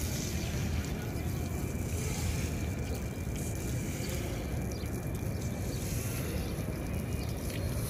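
Steady low rumble of wind buffeting the microphone, over a faint hiss of water spraying from a hose onto a wet stone floor.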